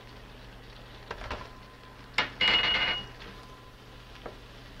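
A small glass bowl clinking against a metal roasting pan as flour is tipped into the pan drippings: a few light taps, then about two seconds in a sharp clink and a brief high ringing scrape.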